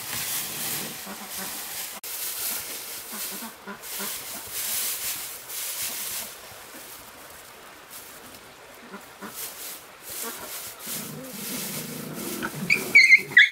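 A hiss that comes and goes, then a few short, loud, high-pitched animal calls near the end.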